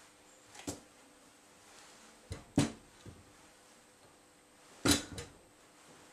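Metal parts of a dismantled Stirling-engine generator, a large steel ring and a screwdriver, being handled and set down on a workbench. A handful of clinks and knocks, the loudest about two and a half and five seconds in, one with a short metallic ring.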